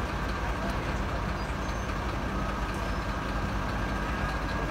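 Heavy diesel engines of a wheel loader and a dump truck running steadily with a low hum.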